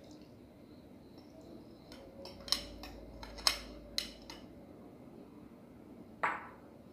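Metal spoon clinking against an aluminium cooking pot while stirring: a few sharp clinks between about two and four seconds in, then one more knock near the end.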